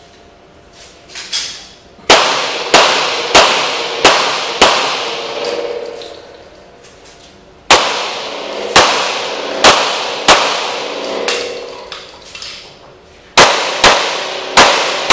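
Handgun shots fired in quick strings, each sharp crack followed by a long echo off the hard walls of an indoor range. Five shots come about two seconds in, under a second apart; five more follow from about eight seconds in, and four more near the end.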